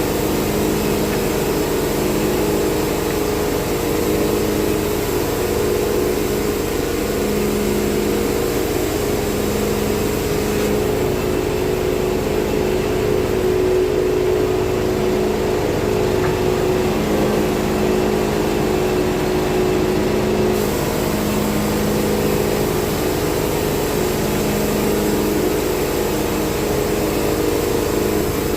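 Portable band sawmill's engine running steadily under power, with a slow regular throb about every second and a half.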